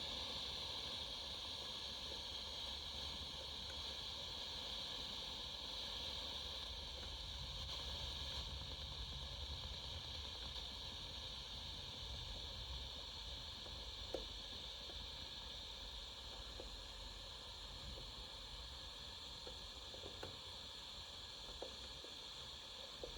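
General Electric 7-2930D portable radio hissing with steady static from its speaker, tuned where no station comes in, with a few faint clicks partway through.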